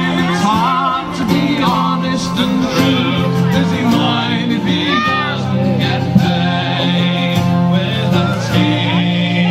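Folk band of squeezeboxes playing a song, with a singing voice over long held reed chords.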